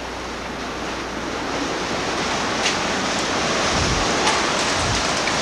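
Strong tornado winds blowing across the microphone: a dense, steady rush that grows louder, with a couple of faint sharp ticks.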